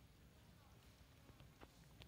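Near silence: faint outdoor room tone with a couple of soft clicks about a second and a half in.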